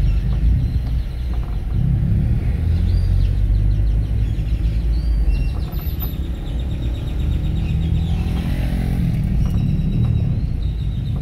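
Steady low rumble of a car driving along a road, engine and tyre noise, swelling briefly around eight to nine seconds in.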